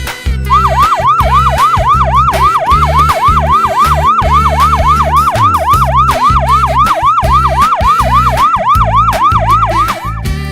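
Emergency-vehicle siren in a fast yelp, about three and a half sweeps a second, over background music with a steady bass beat. The siren starts about half a second in and stops near the end.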